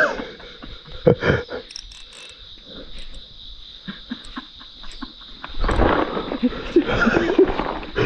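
A steady, high-pitched chirring of insects, typical of crickets in late summer, with scattered knocks and rustling from rod and line handling that grow louder in the last couple of seconds.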